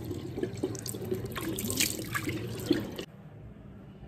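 Tap water running into a sink with irregular splashing, as from hands washing a face; the water stops suddenly about three seconds in.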